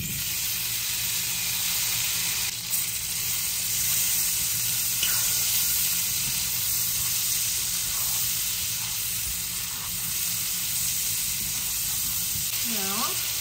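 Cherry tomatoes tipped into hot butter and bacon grease in a nonstick sauté pan, sizzling loudly and steadily as they are stirred with a spatula; the sizzle jumps up as they go in.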